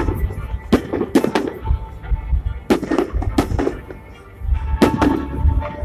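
Aerial firework shells bursting overhead: a series of about nine sharp bangs at irregular spacing, some in quick succession, over a continuous low rumble.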